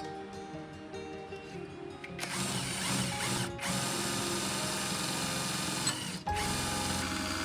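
Background music, with mechanical tool noise under it that grows louder about two seconds in.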